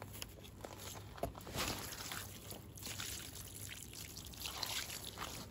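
Water poured from a plastic bucket onto an unhooking mat, splashing and trickling, with a few light handling knocks.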